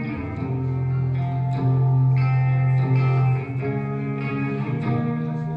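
Live band playing a slow instrumental song intro: guitar chords ringing and held, changing every second or two over a low sustained bass note.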